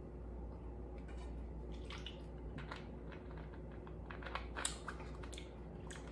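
Faint scattered clicks and mouth sounds of a person drinking from a small bottle and handling it, over a low steady room hum.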